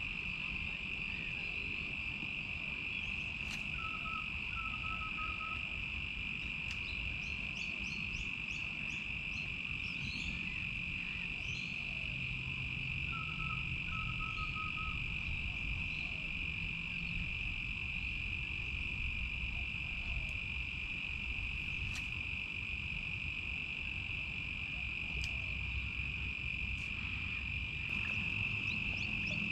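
Steady, high-pitched chorus of crickets, with two short runs of lower chirps about four and thirteen seconds in over a low rumble.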